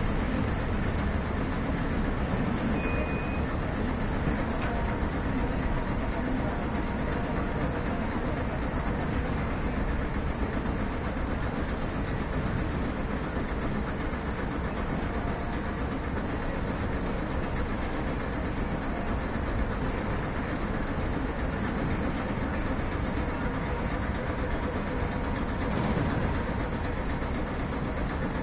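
Hankai Tramway Mo161-series tram standing at a street stop: a steady low rumble of the car and surrounding street, with no sudden sounds.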